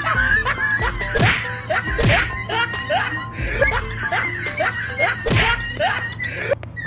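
Background music with a pulsing bass, full of short rising notes about twice a second and a few sharp smacks.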